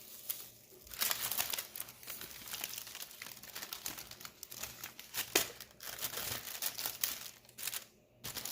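Plastic wrap crinkling and crackling in quick, irregular bursts as a sub sandwich is wrapped up, starting about a second in.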